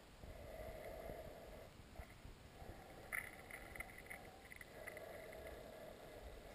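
Faint river water sounds picked up by a camera held underwater, a low rushing that swells and fades about every two seconds, with low thumps and a short run of faint clicks about three seconds in.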